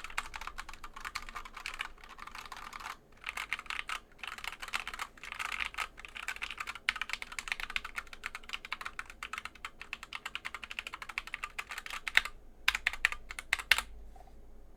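Fast typing on an Asceny 60% mechanical keyboard with Gateron brown switches: a rapid, continuous run of key clacks with a couple of brief pauses, stopping about a second before the end.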